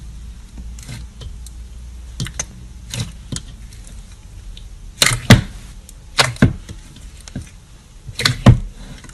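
Clear slime being squeezed and pressed by hand in a steel bowl, giving sharp wet pops and clicks. They come irregularly and grow louder, the loudest in close pairs about halfway through and near the end.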